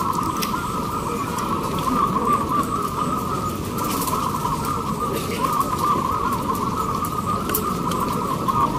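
Many caged zebra doves (perkutut) cooing at once, their rapid warbling coos overlapping into a continuous chorus.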